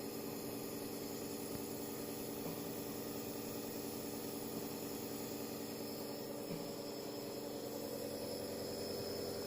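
Compressor nebulizer running for an inhalation treatment: a steady machine hum with several fixed tones that does not change.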